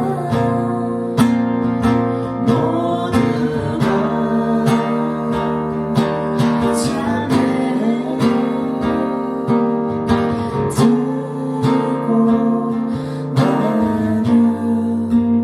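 Acoustic guitar playing chords and picked notes in an instrumental passage of a song.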